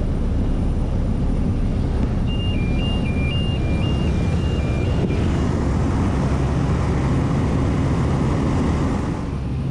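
Single-engine propeller plane's engine and propeller running steadily at take-off power during the take-off roll on grass, heard from inside the cabin. About two seconds in, a two-tone alternating beep from the cockpit sounds for about three seconds.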